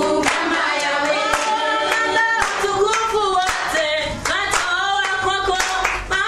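A group of voices singing together in harmony, unaccompanied, with hand claps keeping a steady beat.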